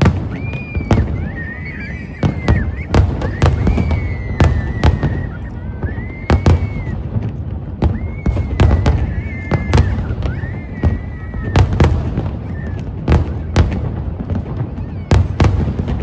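Fireworks bursting in quick succession: a dense series of sharp bangs, several a second at times, over a continuous deep rumble of shells.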